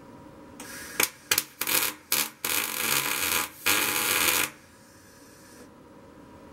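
Welding arc crackling as steel angle pieces are tack-welded to a smoker's cooking grate: about five short bursts, then two longer ones of about a second each, stopping sharply.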